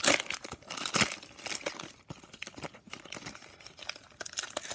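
Foil wrapper of a hockey card pack crinkling and tearing as it is ripped open by hand, the wrapper shredding. Irregular crackles throughout, loudest at the very start and again about a second in.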